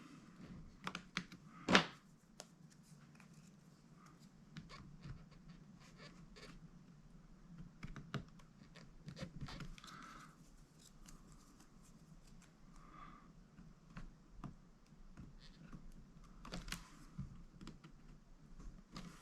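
Faint clicks, taps and scrapes of hands working inside an open laptop, reconnecting the new battery's plastic connector, with one sharper click nearly two seconds in.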